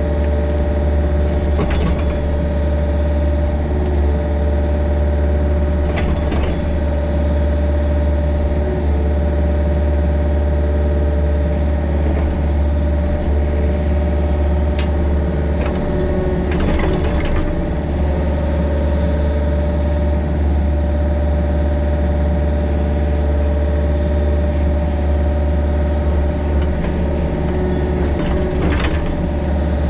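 Mini excavator's diesel engine running steadily under load while digging, with a few short clanks and scrapes from the digging.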